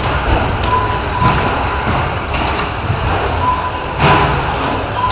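Radio-controlled short-course trucks racing on an indoor off-road track: a steady noisy din of motors and tyres echoing in a large hall. A short steady high tone sounds twice, and a sudden louder burst comes about four seconds in.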